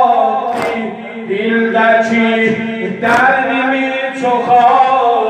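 Shia mourning chant (noha): a male eulogist sings into a microphone while a group of men chant along. Sharp chest-beating slaps (sineh zani) land about every two and a half seconds.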